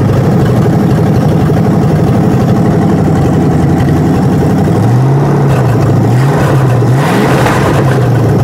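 Ford 302 V8 on an engine stand, running loud with no exhaust pipes, straight out of the manifolds, just after a hot restart. It runs steadily, then from about five seconds in it is revved up and back down a few times with the throttle.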